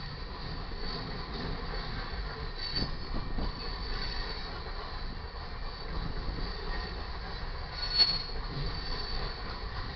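Cars of a loaded coal train rolling past, their wheels rumbling steadily, with a thin high wheel squeal that comes and goes. A brief louder screech with a knock comes near the end.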